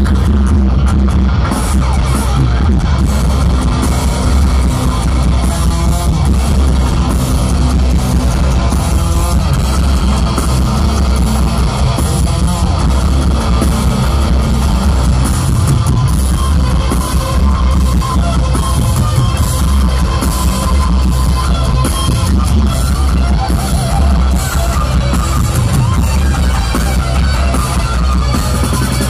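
Heavy metal band playing live through a PA, an instrumental passage of distorted electric guitars, bass and drums with no singing, loud and steady.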